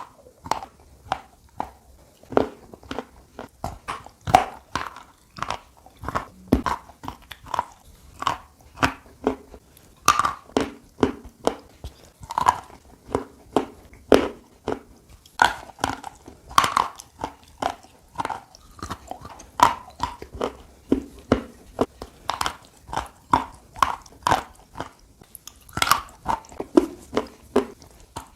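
A person biting off and chewing pieces of hard, dry chalky mineral. It makes a run of sharp, crisp crunches, about two a second, with no pauses.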